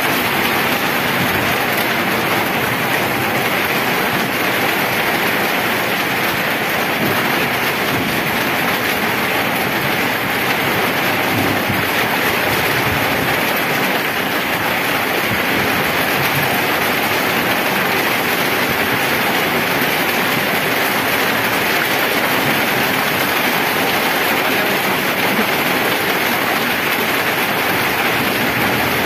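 Heavy rain falling on wet pavement and road, a steady, even hiss of rain.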